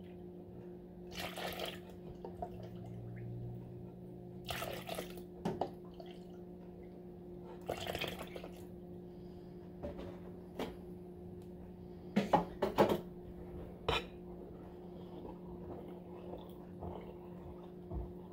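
Milk poured from a jug into a measuring cup and tipped into a mixing bowl, three pours of about a second each. Then a few sharp knocks of the cup or utensil against the bowl, over a steady low hum.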